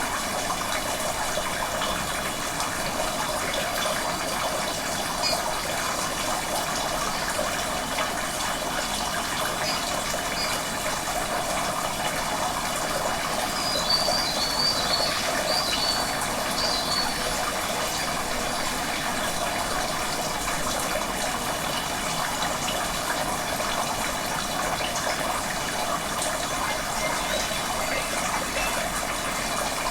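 Steady rush of flowing water, like a creek or small cascade, with no change in level. A few short, faint high chirps come through about halfway through.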